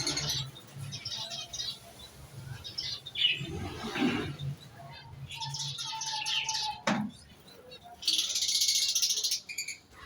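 Small cage birds in an aviary chirping and chattering in repeated short high calls, with one dense burst of chatter near the end. A single sharp click comes about two-thirds of the way through.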